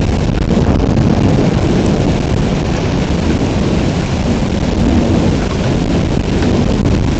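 Thunderstorm with heavy pouring rain: a steady, loud roar of rain with a deep, even low rumble under it and no separate thunderclap.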